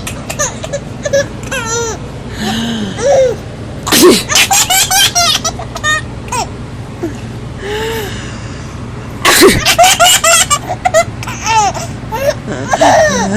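Sneezes, each followed by a burst of rapid laughter: a sudden sneeze about four seconds in breaks into quick pulses of laughing, and another about nine seconds in does the same, with softer giggly vocal sounds in between.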